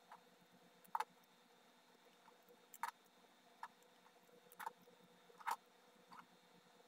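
Hands handling paper scraps on a book page: a handful of light, sharp taps and rustles, about seven, unevenly spaced, over a faint steady background.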